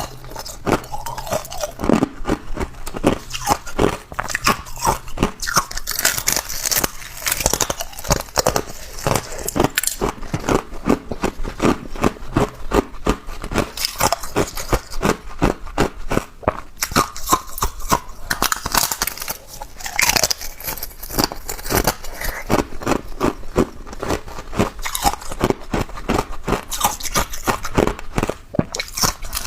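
Close-miked crunching of hard ice being bitten and chewed: a dense, continuous run of sharp cracks and crunches, several per second.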